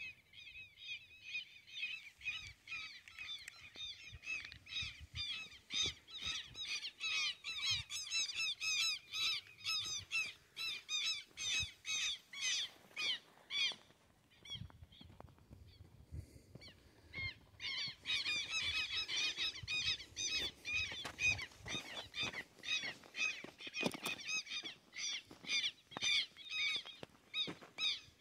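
A bird giving a rapid series of harsh, repeated calls in two long bouts, with a pause of a few seconds near the middle.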